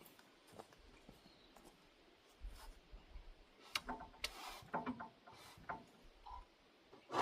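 Faint, scattered clicks and knocks with a few soft low thumps, mostly in the middle stretch: hands-on handling of parts and timber at a sawmill while a log is readied to be flipped.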